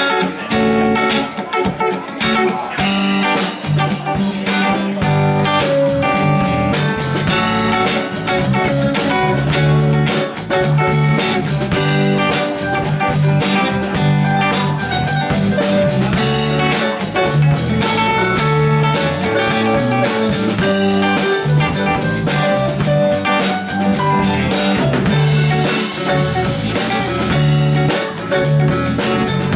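Live rock band playing an instrumental passage on electric guitars, keyboard and drum kit, with the drums and cymbals coming in about two and a half seconds in.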